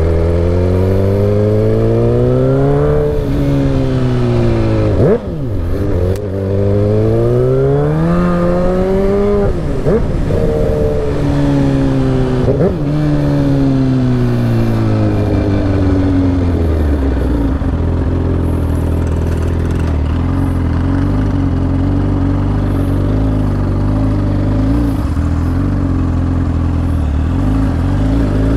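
2009 Suzuki GSX-R1000's inline-four engine under way, revving up and easing off three times with a few brief knocks in between, then running at a steady pitch for the last ten seconds or so.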